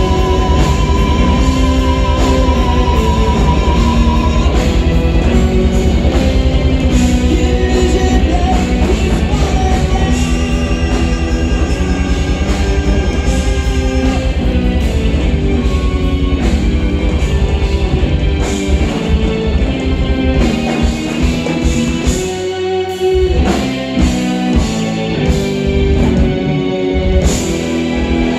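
Rock band playing an instrumental passage live, with electric guitar, bass and drum kit. A sustained guitar note is held for the first few seconds. About eighteen seconds in, the steady driving low end breaks into separate accented hits, with a brief drop around twenty-three seconds.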